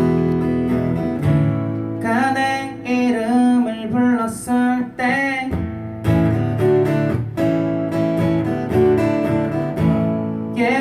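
Acoustic guitar strummed and picked, with a woman's voice singing over it from about two seconds in.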